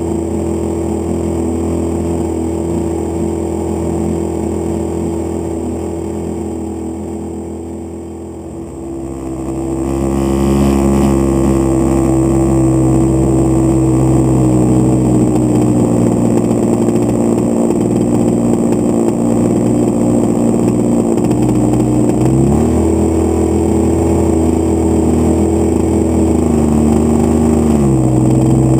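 30cc gas engine of a Great Planes Avistar radio-control model plane running in flight, heard from inside the model's cabin. It eases off and quietens for a few seconds, opens up again about nine seconds in, then runs steadily with a slight rise in pitch about two-thirds through and a drop back near the end.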